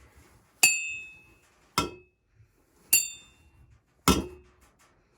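A spoon striking a ceramic mug and a plastic mug in turn, four strikes about a second apart in an A-B pattern. The strikes alternate between a bright ringing clink, from the ceramic mug, and a duller, lower knock, from the plastic one.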